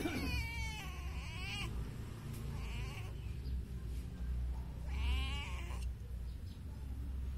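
Calico domestic cat meowing: a long meow at the start, a short faint one about three seconds in, and another meow about five seconds in.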